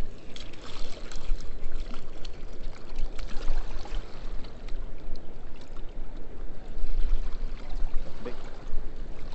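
Steady rushing of water below a river spillway, with a low rumble underneath.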